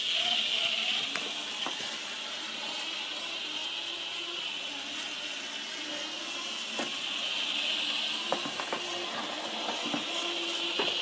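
Z-scale model railcar running on its track, its tiny electric motor giving a high, steady whine that slowly rises and falls in pitch, with a few faint clicks.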